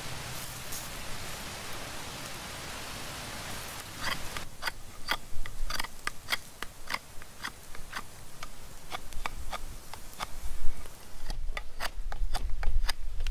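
A steady hiss of running water for the first few seconds, then a knife whittling a split piece of wood: short, sharp carving strokes, unevenly spaced at about two a second.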